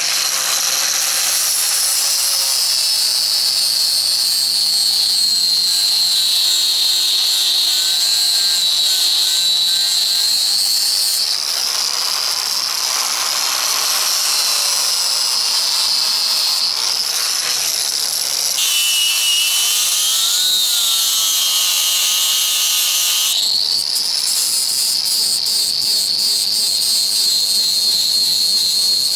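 A power tool running with a steady high-pitched whine; its pitch shifts abruptly a few times.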